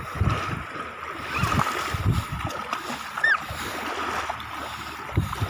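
Shallow sea water splashing and sloshing as a child wades and kicks through it, in irregular surges. Two or three short high-pitched squeaks come through along the way.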